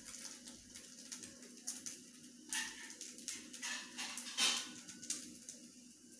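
Faint room tone with a low steady hum, scattered small clicks and a few short rustles, about two and a half, three and a half and four and a half seconds in.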